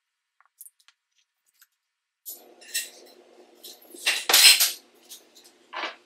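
Kitchenware clinking and clattering as it is handled on the counter, with a few light clicks at first and the loudest clatter about four seconds in.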